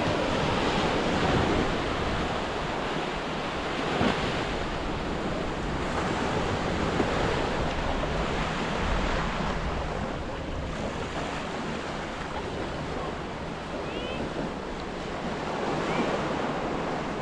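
Ocean surf washing on a beach, a steady rush that swells and eases, with wind buffeting the microphone.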